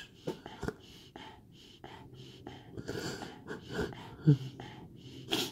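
A man crying: shaky, gasping breaths and sniffs, with a short voiced sob about four seconds in.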